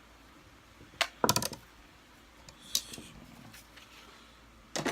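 Sharp clicks and a short rattling run of clicks from a hand tool and small parts handled against the Kirby Sentria II vacuum's casing while a side screw and cover are being worked off. Single clicks about a second in and near the middle, with another cluster near the end.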